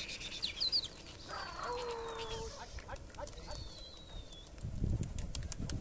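A rooster crows once, a held call lasting about a second, starting a little over a second in, among a few high bird chirps. There is low rumbling thumping near the end.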